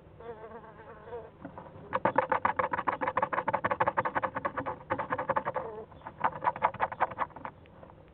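A young animal calling: a short wavering call, then two long runs of rapid buzzy pulses, about ten a second, the first lasting nearly four seconds and the second about a second and a half.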